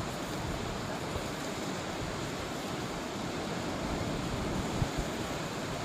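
Steady rushing noise of waterfall water, mixed with wind across the microphone. A brief knock comes near the end.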